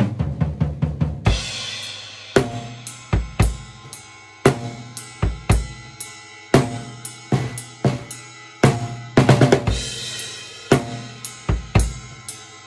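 A drum kit is played in a beat of bass drum, cymbals and a Tama Woodworks 14x8-inch snare drum. A cymbal crash rings out about a second in and another comes about two thirds of the way through.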